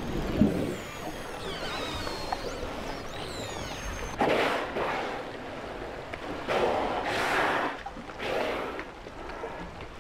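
High underwater whistles gliding up and down in pitch for the first few seconds. Then killer whales surfacing in a lead in the sea ice give three loud, breathy blows, each about half a second to a second long.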